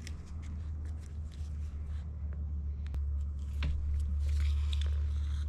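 Faint rustles and small clicks of hands pulling artificial sinew through a coiled pine needle basket. Under them a steady low rumble that grows louder about halfway through.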